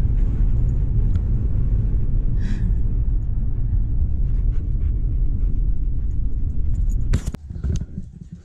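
Steady low road rumble of a moving car heard from inside the cabin, with a Siberian husky panting. About seven seconds in comes a sharp knock and the rumble drops away.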